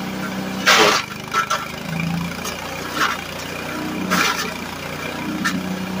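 Small engine of a LandWorks drum chipper running on wood gas, with several sharp cracks of wood as scrap boards are split and chipped; the loudest crack comes about a second in, and the engine note dips under the load around each crack.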